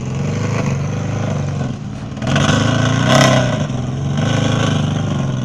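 Off-road vehicle engine running and revving, getting louder about two seconds in, with a loud rushing surge near the middle.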